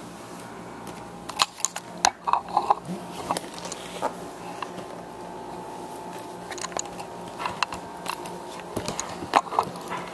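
Plastic parts and packaging being handled: scattered small clicks, taps and crackles in two clusters, over a steady background hum.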